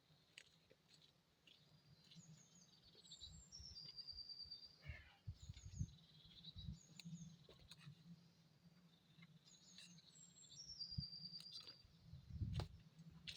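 Faint birdsong from a songbird singing the same short phrase twice, a few high descending notes ending in a steady trill, over quiet outdoor background with some low rumbling.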